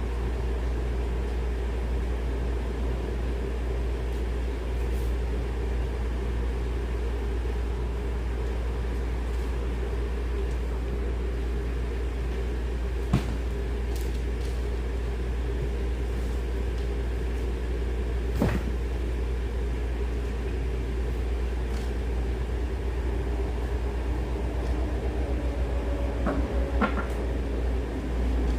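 Steady low mechanical hum. Two sharp clicks come about 13 and 18 seconds in, and a short run of knocks and rattles comes near the end.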